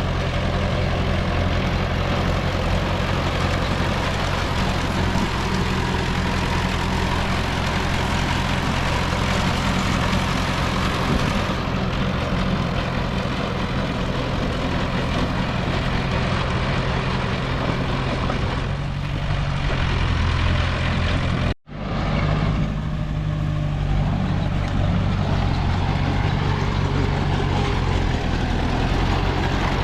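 Heavy diesel earthmoving machinery running steadily with a low, even engine hum, which cuts out for an instant about two-thirds of the way through.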